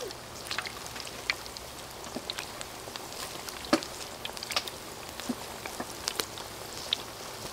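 Hot oil in a wok sizzling steadily as balls of batter deep-fry, with scattered sharp crackles and pops throughout; the loudest pop comes about halfway through.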